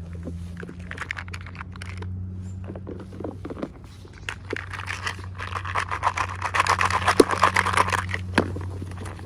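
Hands handling and crinkling plastic packaging, with scattered small clicks and taps. The crinkling grows denser about halfway through and thins out near the end, over a steady low hum.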